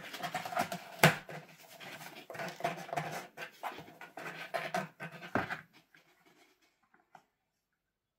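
A cat's claws scratching and rustling the cardboard as it moves about inside a cardboard box, in irregular strokes, with a sharp knock about a second in and another near five and a half seconds. The scratching stops a little before six seconds.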